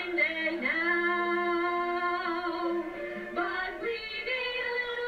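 Women singing, holding long notes: one from about half a second in to about three seconds, then a new one from about three and a half seconds.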